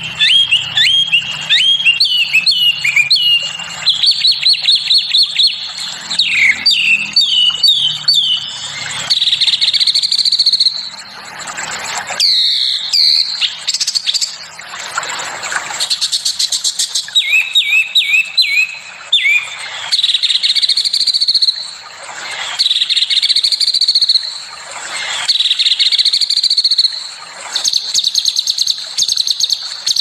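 Small songbirds singing loud, fast song: quick runs of sharp, rapid chirps and sweeping notes, broken by harsher swelling phrases every couple of seconds in the second half.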